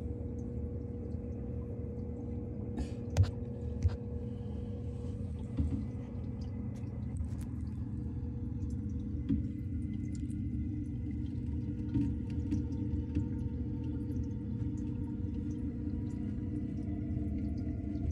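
Steady low hum of saltwater aquarium pumps and water moving, with a few sharp clicks, the loudest about three seconds in.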